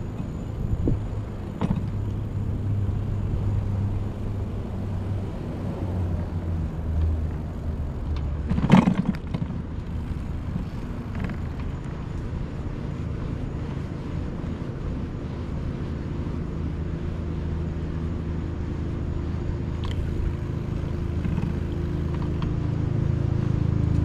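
Low rumble of wind and riding noise on a chest-mounted GoPro while cycling, with traffic sound mixed in. A sharp knock stands out about nine seconds in, and the rumble grows louder near the end.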